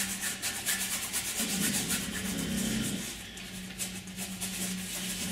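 Paintbrush scrubbing paint into a stretched canvas in rapid back-and-forth strokes, a scratchy rubbing at about five or six strokes a second. It eases off about three seconds in and then picks up again.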